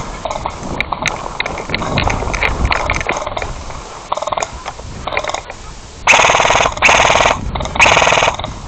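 Airsoft electric gun firing full-auto: three loud, rapid bursts of about half a second each near the end, after two shorter, fainter bursts a second or two earlier. Scattered clicks and rustle of movement come before them.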